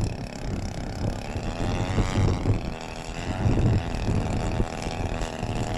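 DL-50 50cc two-stroke gas engine of a large RC aerobatic plane in flight, its pitch rising and falling with throttle changes. Gusty wind rumbles on the microphone underneath.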